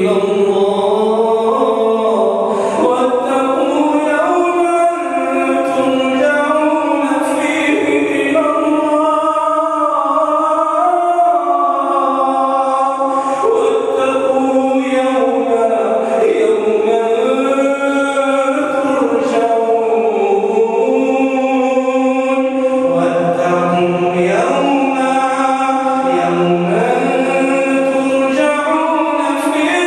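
A man reciting the Quran in the melodic, drawn-out style of tajwid recitation. His voice glides between long held, ornamented notes.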